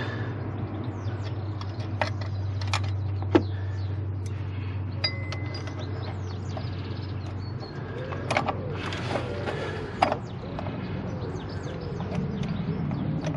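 Scattered small metallic clicks and clinks of steel bolts and hand tools as the water pump's mounting bolts are started on their threads by hand. Birds chirp in the background over a steady low hum, and a passing vehicle grows louder near the end.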